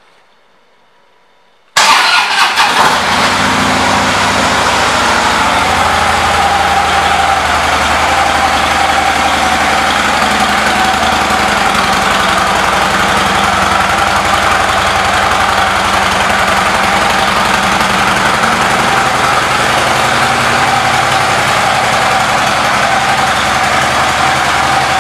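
2012 Harley-Davidson Ultra Limited's Twin Cam 103 V-twin fires up about two seconds in. It is uneven for a moment as it catches, then idles steadily.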